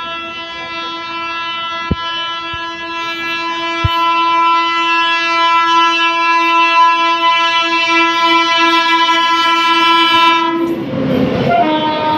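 Freight train's electric locomotive horn blown in one long, steady multi-tone blast that grows louder as it approaches, for about ten seconds. Near the end the horn breaks off into the rush and rattle of the locomotive passing close by, with a short second horn note.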